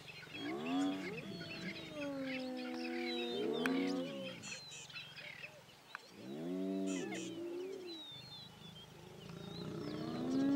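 Spotted hyenas lowing and groaning as a group while closing in on a lion: long held low calls, with three shorter calls that rise and fall in pitch, each about a second. Small birds chirp throughout.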